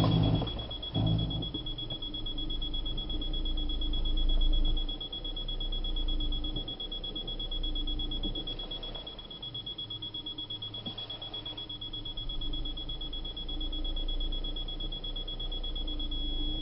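Škoda Yeti engine running with a steady high-pitched whine throughout, over a low rumble; this is the abnormal noise coming from the right front of the engine bay.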